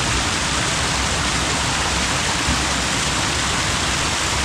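Waterfall water rushing, a loud, steady, unbroken hiss.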